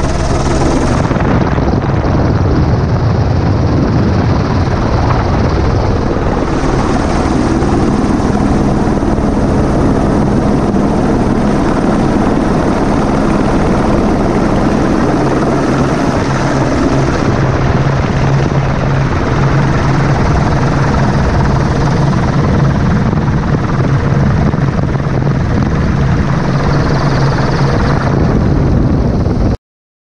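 Helicopter in flight heard from inside the cabin: a loud, steady engine and rotor noise with a low hum, cutting off suddenly near the end.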